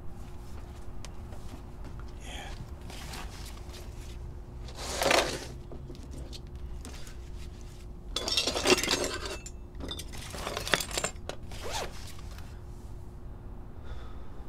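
Knives and sales materials being handled and packed up on a table: several short scraping, rustling bursts with light clinks, the longest about eight seconds in, over a faint steady hum.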